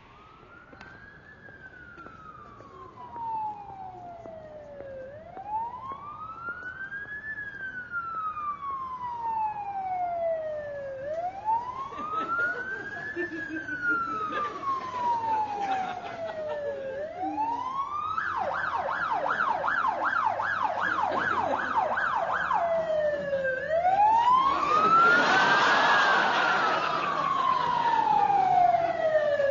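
Ambulance siren in a slow wail, each sweep rising and then falling over about six seconds. It switches to a fast yelp for about four seconds past the middle, then goes back to the wail. It grows steadily louder as it approaches, and a rushing noise joins in near the end.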